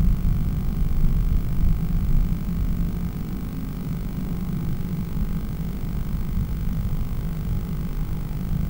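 Low, uneven rumble with a faint steady hum, picked up by the microphone inside a blue tit nest box.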